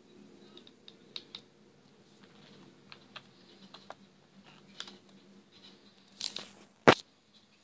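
Faint scattered clicks and taps over a low hum, a brief rustle a little after six seconds, then one sharp knock just before seven seconds, the loudest sound.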